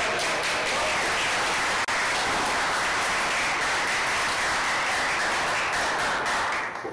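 Audience applauding steadily for several seconds, then dying away near the end, for the pot that ends the rack.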